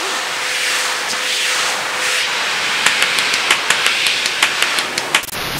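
Pressure washer spraying water, a steady hiss. From about halfway through there is a quick run of regular clicks, about five a second, and the sound cuts off suddenly near the end.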